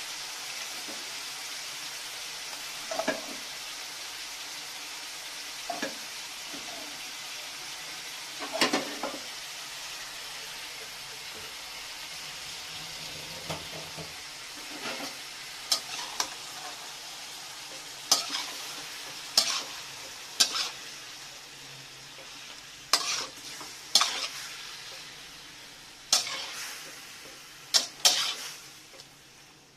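Diced pork and pork liver frying in a metal wok with a steady sizzle, while a metal spatula scrapes and knocks against the pan now and then, more often in the second half. The sizzle dies down toward the end.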